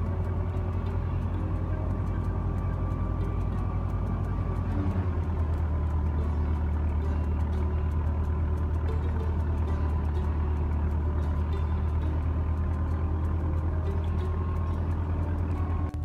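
Tractor diesel engine driving a wheat thresher, the two running together in a steady, loud mechanical drone as wheat sheaves are fed into the threshing drum.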